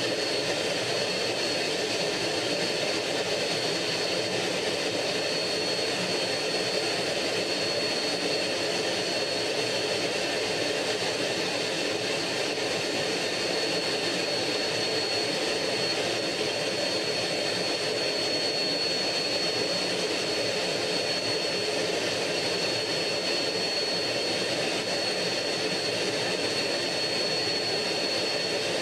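MiG-15's centrifugal-flow turbojet engine running steadily in cruise, heard from inside the cockpit as an even roar with a steady high whine on top.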